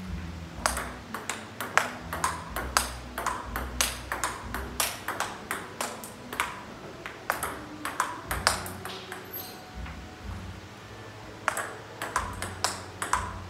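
Table tennis rally: the celluloid/plastic ball clicking sharply off the paddles and the table, several knocks a second. The hitting breaks off for about two seconds late on, then starts again.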